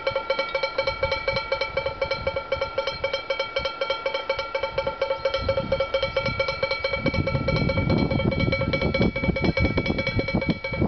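Wind-driven bird scarer: two wooden clappers, swung by its wind turbine, beat alternately on the bottom of a chamber pot in rapid, even strokes, each ringing with the same clanging tones. A low rumble builds under the strokes from about halfway through.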